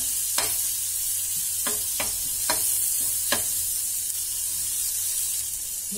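Crushed garlic sizzling steadily in melted butter in a frying pan as it is sautéed, stirred with a steel spoon that clicks against the pan five times in the first three and a half seconds.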